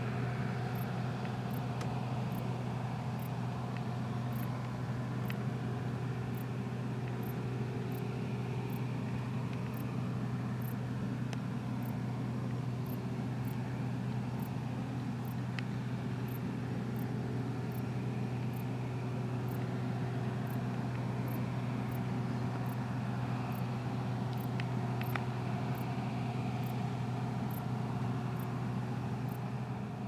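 Claas Dominator 108 combine harvester running steadily under load while harvesting wheat: an even, unbroken low engine and threshing hum.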